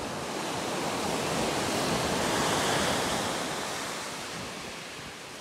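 Ocean surf washing up a sandy beach, building to its loudest about halfway through and then fading.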